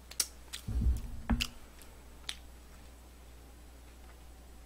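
A few sharp wet clicks and smacks of a person eating with his fingers at his mouth, with a couple of dull low thumps about a second in.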